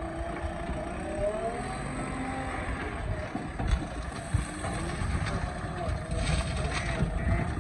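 Diesel engine of a JCB 3DX backhoe loader running under working load, its pitch rising and falling as the hydraulics dig and lift. A few short thumps come in the middle and again near the end.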